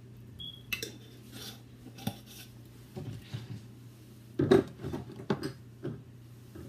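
Clinks and knocks of kitchen jars being handled: a seasoning jar worked over a stainless steel bowl, then a wall cabinet door opened and jars moved about on the shelf. The loudest knock comes about four and a half seconds in.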